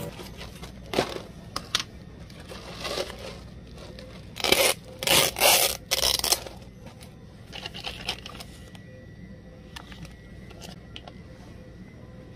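Sealed plastic film lid being peeled off a cup of ice: several loud ripping pulls about four and a half to six seconds in, with a few clicks of the ice cup being handled before it and softer crinkling of a plastic drink pouch afterwards.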